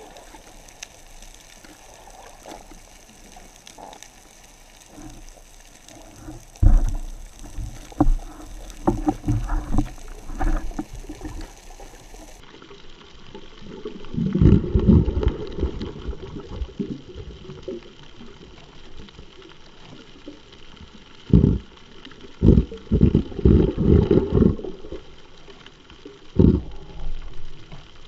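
Underwater churning water and bubbles heard through an action camera's waterproof housing: a steady hiss broken by several runs of uneven low rumbling bursts.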